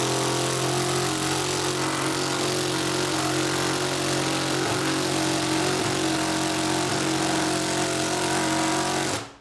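Ryobi P238 18-volt brushless impact driver running in second gear on a 3-inch sheetrock screw, hammering steadily for a long stretch, then stopping near the end.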